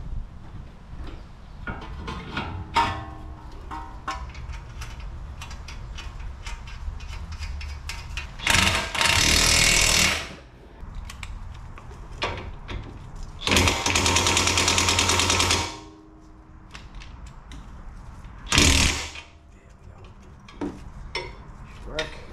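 Impact wrench hammering in three bursts: two of about two seconds each and a short one near the end, with small clicks and knocks of tools between them.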